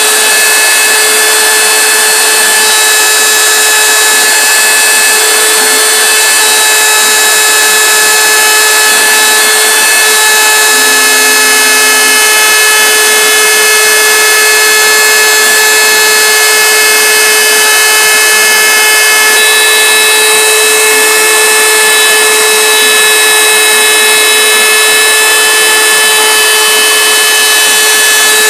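A DIY CNC router's spindle motor running at a steady speed while its engraving bit cuts grooves into a sheet of board. It makes an even, high whine made of several held tones over a constant hiss of cutting.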